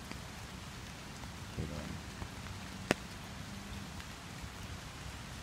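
Steady rain pattering on a river's surface and on an umbrella overhead, with one sharp tick about three seconds in.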